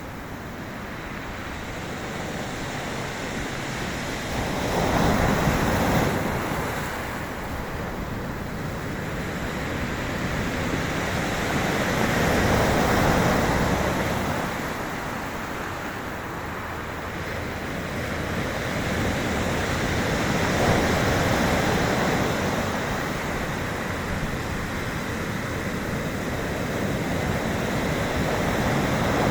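Sea waves breaking and washing on the shore, swelling and ebbing in slow surges every seven or eight seconds.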